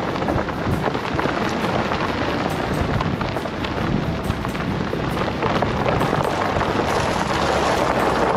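Car driving on a gravel dirt road: tyres crunching and crackling over loose stones, with road rumble and wind through the open window.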